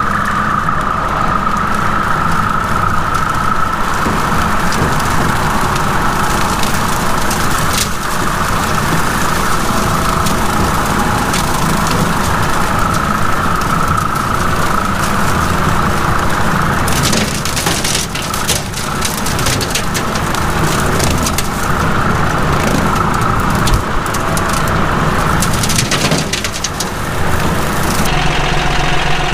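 A John Deere tractor's engine runs steadily as it drives along a wooded trail, with a steady high whine over the engine. Partway through and again near the end, sticks and brush crackle and snap under the machine. Just before the end it changes to the engine idling.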